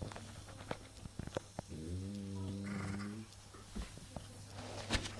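French bulldog snoring: one drawn-out, pitched snore a couple of seconds in, with a few faint clicks and a steady low hum underneath.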